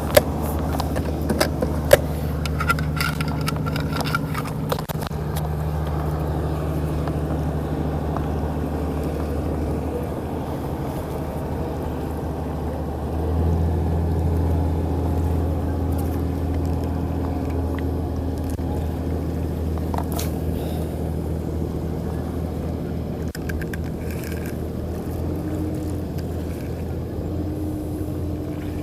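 An engine drones steadily, with a few sharp clicks in the first seconds. About halfway through the drone grows louder and slightly higher in pitch.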